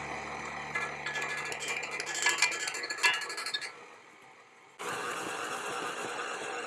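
KitchenAid stand mixer running with its dough hook kneading a soft dough in the steel bowl, with clinking and rattling through the first half. The sound drops away about four seconds in and comes back abruptly under a second later.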